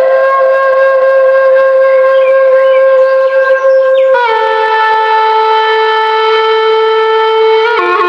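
Background music: a wind instrument holds one long note, then steps down to a slightly lower long note about four seconds in.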